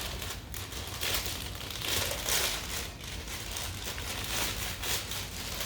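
Packaging crinkling and rustling in irregular bursts as the turntable's platter is unwrapped by hand.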